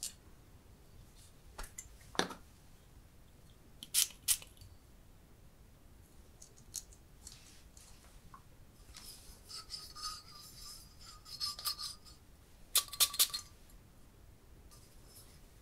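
Fingers handling glass perfume bottles: a few sharp taps and clicks, a stretch of rubbing against the glass from about nine to twelve seconds in, and a quick cluster of clicks about a second later.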